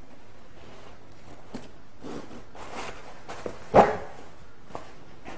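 Handling of a stroller's shoulder harness strap and padded strap cover: fabric rustling and small clicks, with one sharp knock a little under four seconds in.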